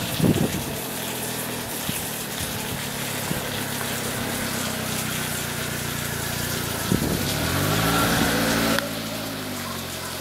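An engine running steadily with a low drone; about seven seconds in its pitch bends up and down, then the sound changes abruptly near the end.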